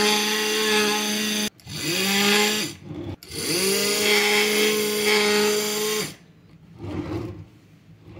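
Sun Special SSW-100 direct-drive fabric-cutting machine, with its 4-inch round blade and 200 W motor, running with a steady whine. It cuts out suddenly about a second and a half in, spins back up with a rising pitch, dips briefly near the three-second mark, runs again and stops about six seconds in. Faint handling of cloth follows.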